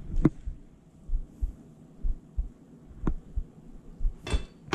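Countertop handling sounds as a knife cuts and drops chunks of butter onto vegetables on aluminium foil: irregular dull low thumps, two light clicks, and a brief rustle near the end.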